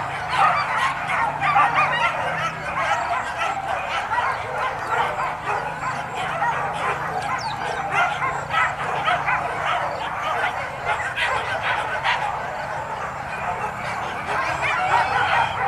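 A pack of leashed boar-hunting dogs barking and yelping over one another without a break, a dense continuous din of many dogs at once.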